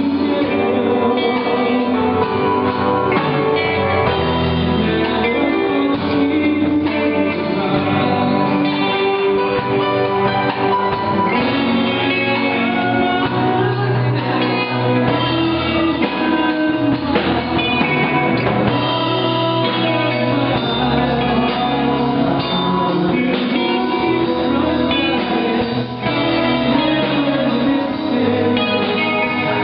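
Live band playing a song, with guitars and a drum kit, and singing heard in parts.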